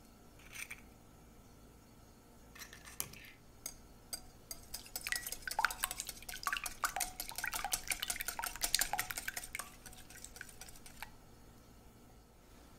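A metal balloon whisk beating raw eggs in a glass bowl: the wires click rapidly against the glass for about six seconds, starting about four and a half seconds in, after a few light knocks.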